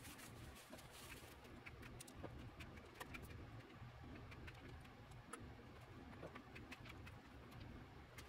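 Faint handling of small parts on a wooden workbench: a plastic bag crinkling during the first second or so, then scattered light clicks and taps as small metal pieces are handled and set down, over a low steady hum.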